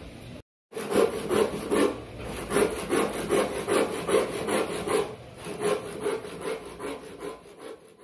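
Hand saw cutting through a wooden board in steady back-and-forth strokes, about two and a half strokes a second, easing off briefly about halfway through before carrying on.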